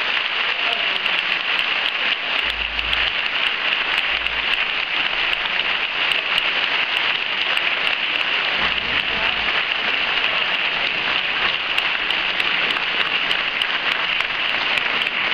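Hall audience applauding: a dense, steady patter of many hands clapping.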